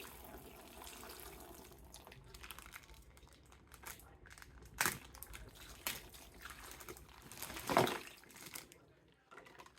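Plastic toy packaging crinkling and rustling as it is handled, with two louder crackles about five and eight seconds in.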